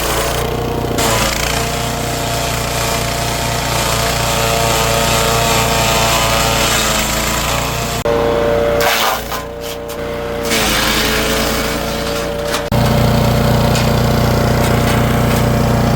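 Engine-driven woodchipper/shredder running, a steady engine drone under dense, rough mechanical noise. The sound changes abruptly about halfway through and again near the end.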